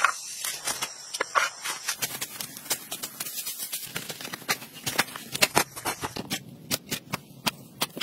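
Spade blade driving into and scraping through dry dirt, a fast, irregular run of sharp strikes and scrapes.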